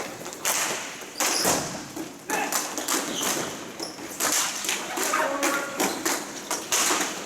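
Ball hockey play: a run of sharp knocks and taps from sticks and the ball hitting each other and the boards, coming irregularly throughout.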